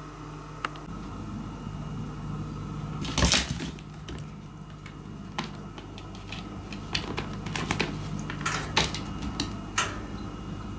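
Light clicks and taps of a cat pawing at a cotton swab and a cable on a wooden floor, over a steady low hum. One louder knock or rustle comes about three seconds in.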